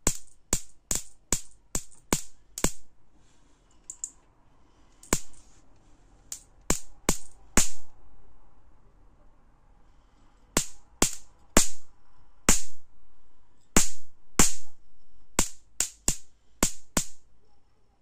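Sharp electric sparks snapping from the high-voltage output of a mains-powered capacitor-diode voltage multiplier (a mosquito-killer circuit) into a screwdriver tip. They come in irregular runs of about three a second, with a pause of about three seconds around the middle.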